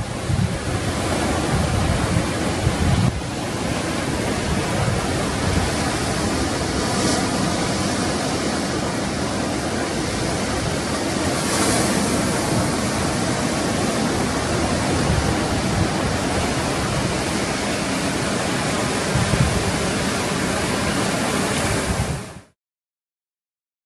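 Ocean surf breaking continuously, with wind rumbling on the microphone, then cutting off abruptly about a second and a half before the end.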